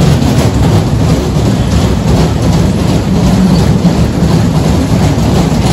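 A loud, steady low rumble like a running engine or machine, with a rough even noise over it.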